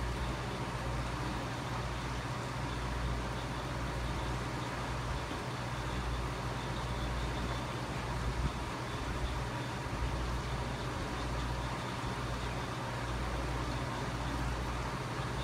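Aquarium filter pump running: a steady low hum with an even hiss of water flow above it.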